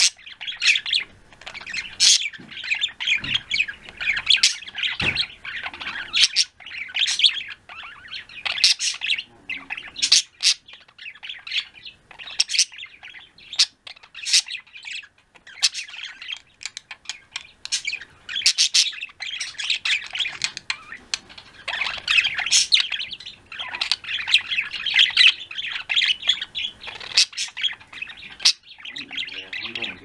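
Pet budgies (budgerigars) chattering: a continuous warble with frequent sharp chirps and trills.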